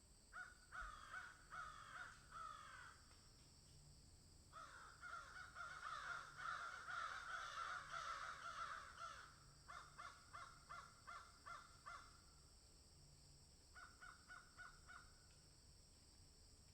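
Birds calling in series of quick repeated notes: a short run near the start, a longer stretch of overlapping calls in the middle, then two shorter runs near the end, over a faint steady high hiss.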